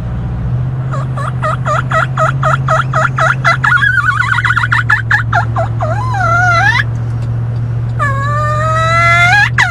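A turkey call practised inside a moving vehicle. A fast run of about a dozen yelps, roughly four a second, is followed by more notes, a note sliding upward, and a long drawn-out call near the end. The vehicle's steady low drone runs underneath.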